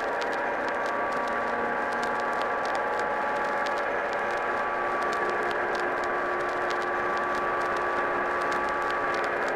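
Degraded, hazy soundtrack drone: several held tones blur together under a steady hiss, with scattered crackle like worn vinyl throughout.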